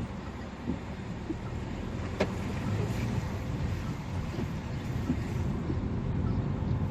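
Steady road and engine noise of a car driving on a motorway, with a single sharp click about two seconds in.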